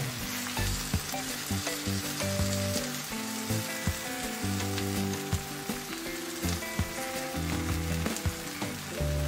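Egg and tomato omelette sizzling in a frying pan, with soft background music of held notes playing over it.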